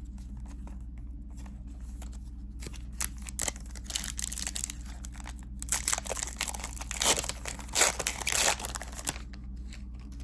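Disney Lorcana booster pack wrapper being torn open and crinkled, in irregular crackling bursts that start about three seconds in and are loudest in the last few seconds before stopping.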